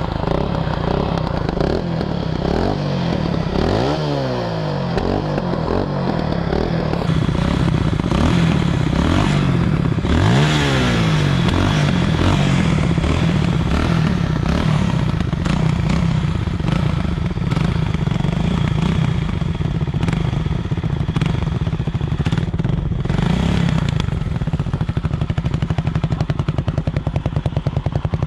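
Sport quad (ATV) engines idling, with the throttle blipped briefly twice, about four seconds in and again about ten seconds in. Near the end the idle settles into an even, rapid pulsing.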